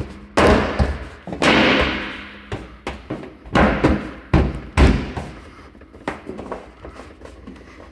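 Hammer blows on the dented sheet-metal cabinet of a clothes dryer as the dent is beaten out. About six heavy strikes, each ringing off, come in the first five seconds, followed by lighter knocks.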